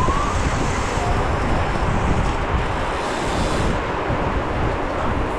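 Wind buffeting the microphone of a GoPro carried on a mountain bike rolling in a pack, a steady rumbling rush of noise with tyre and road noise beneath it.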